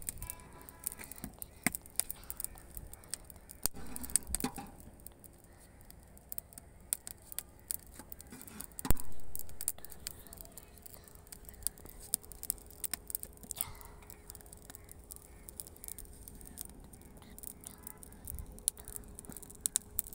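Wood fire in a clay chulha crackling, with scattered sharp pops and clicks, and one louder knock about nine seconds in; a faint steady hum underneath.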